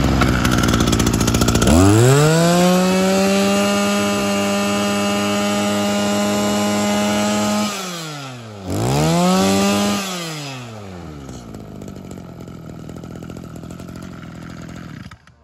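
Robin NB2600 brushcutter's small two-stroke engine on a test run. Its pitch rises sharply to full throttle about two seconds in and holds high for several seconds, then drops and is blipped up once more. It falls back to a steady idle and cuts off at the very end.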